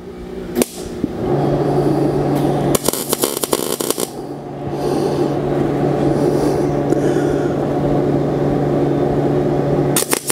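Arc welding tack welds on a steel driveline tube: several short crackling bursts of the arc, the longest about three seconds in and another near the end, over a steady machine hum.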